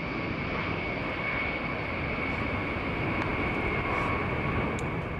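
Jet fighter engines running at high power as the jets take off: a steady high whine over a broad rushing noise, fading out near the end.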